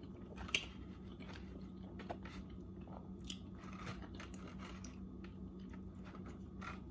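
A person quietly chewing a mouthful of food, with faint small clicks and crunches now and then over a steady low room hum.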